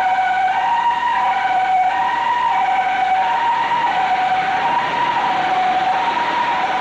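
Emergency vehicle's two-tone siren, alternating high and low notes and switching about every two-thirds of a second, the hi-lo pattern typical of a Japanese ambulance.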